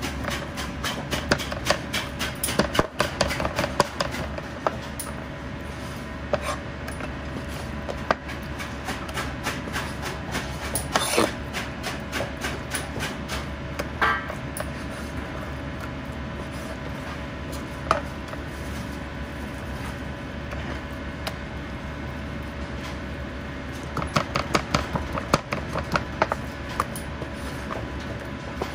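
A Chinese cleaver cutting raw chicken on a plastic cutting board, the blade knocking the board in quick runs of strokes at the start and again near the end, with single knocks between. A steady hum runs underneath.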